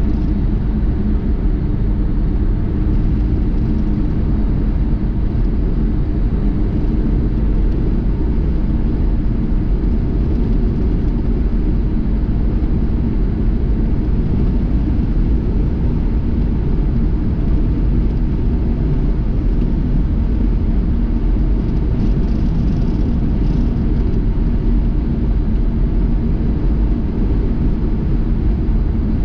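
Steady low rumble of a car driving at an even speed: engine and road noise with no change in pitch.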